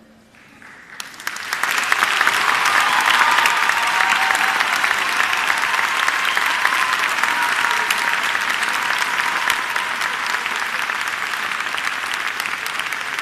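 Audience applauding: the clapping starts about a second in, builds quickly to a dense, steady level and holds.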